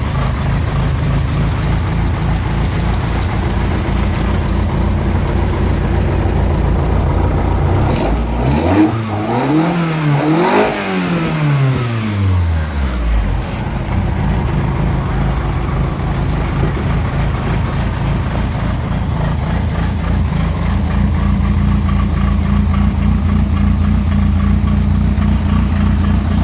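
Car engine idling steadily, revved twice in quick succession about a third of the way in, then falling back to idle. It is running after a fresh oil change.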